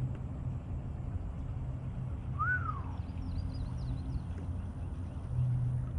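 A steady low hum, with a single arching bird call about two and a half seconds in, followed by faint high chirps.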